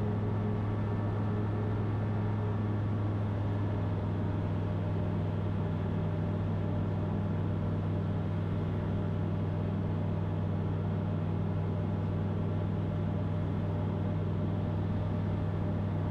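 Van's RV-12 light-sport aircraft's Rotax 912 flat-four engine and propeller droning steadily in flight, heard from inside the cockpit.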